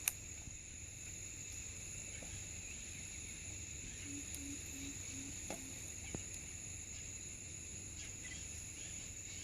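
Steady, high-pitched chorus of rainforest insects. A few faint clicks and, about four seconds in, a short run of five low, evenly spaced notes are heard over it.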